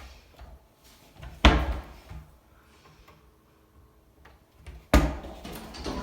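Two sharp bangs of doors being shut, about three and a half seconds apart, each ringing briefly in the room; the second is followed by a few seconds of softer handling noise.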